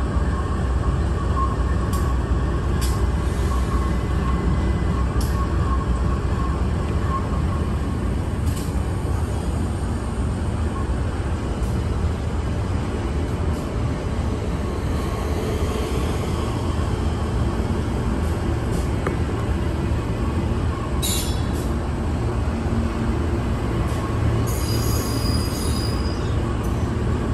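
Freight train rolling past on the rails: a steady low rumble of wagons, with a faint wheel squeal in the first few seconds and scattered clicks.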